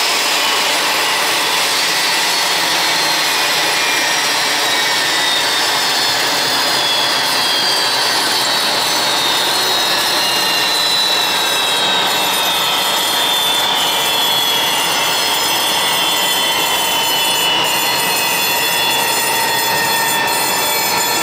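Airbus A320's jet engines winding down after shutdown at the gate: a loud, high turbine whine that falls slowly and steadily in pitch, over a steady rushing noise.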